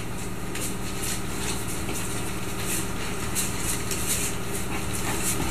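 Steady low mechanical hum with a faint hiss.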